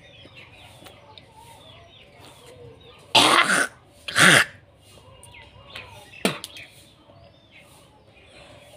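A woman hawking up phlegm while brushing her teeth: two loud, harsh throat-clearing hawks about three and four seconds in, then a short sharp sound a couple of seconds later.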